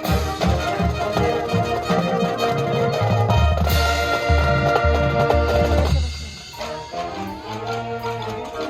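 Marching band playing a field show: brass with heavy low drum hits, dropping suddenly to a softer passage about six seconds in.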